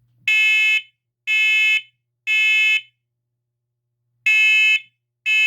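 First Alert SC7010BV combination smoke and carbon monoxide alarm sounding its smoke alarm on test. It gives three shrill half-second beeps about a second apart, then a pause, then the next group of beeps begins: the temporal-three evacuation pattern.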